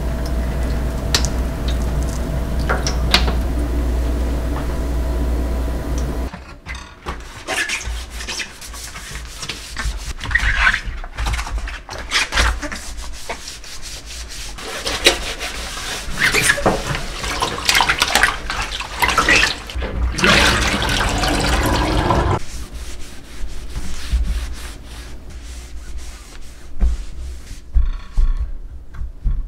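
Hot water pouring from an electric kettle into a stainless steel sink for about six seconds, cutting off abruptly. Then irregular rubbing and scrubbing of the steel sink and faucet with a gloved hand and cloth, loudest about two-thirds of the way through, where it stops sharply, then continuing more quietly.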